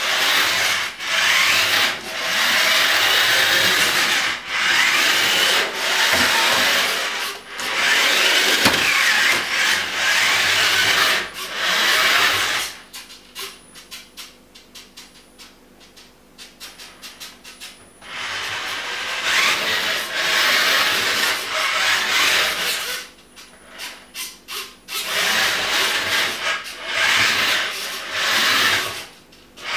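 Small electric drive motor of a DIY Bluetooth RC toy car running in spurts as it drives, with a rasping whirr whose pitch slides up and down with speed. It stops for about five seconds midway, starts again, and pauses briefly once more near the end.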